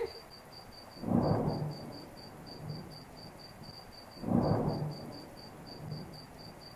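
Two rolls of thunder about three seconds apart, each swelling and fading over about a second, over steady pouring rain.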